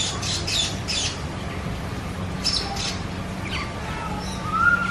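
Birds chirping and squawking in short, high, repeated calls: a quick run in the first second and another burst about two and a half seconds in.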